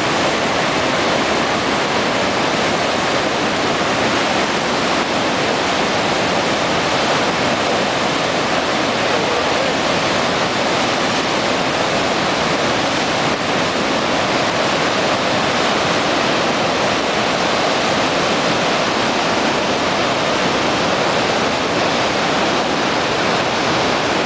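Murchison Falls on the Victoria Nile: white water pouring over and between rock ledges, a loud, steady rushing roar that never lets up.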